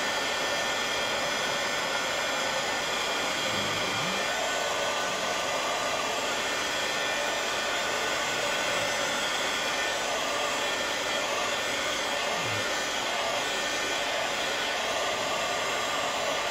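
Handheld embossing heat gun running steadily, a constant whir with a few thin whining tones, as it melts clear embossing powder on a paper tag.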